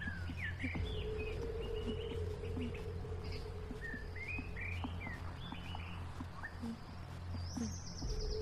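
Woodland ambience: small birds chirping in short, repeated calls over a steady low hum, with a fast high trill near the end.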